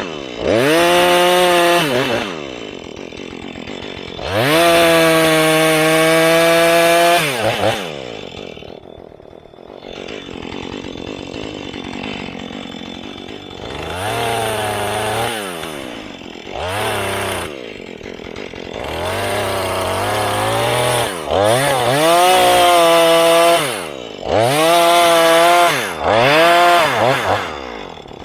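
Husqvarna 435 two-stroke chainsaw cutting into a tree, revved to full throttle in about eight bursts of one to three seconds each and dropping back toward idle between them.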